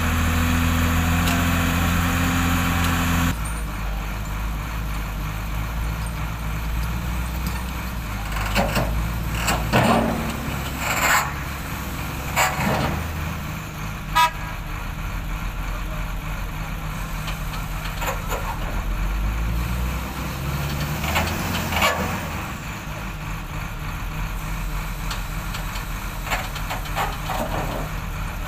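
Heavy diesel engines of a Hyundai crawler excavator and a Hyundai wheel loader running steadily under load while the machines push a large stone block. Several short sharp sounds break in, clustered about a third of the way in and again later. The drone drops suddenly about three seconds in.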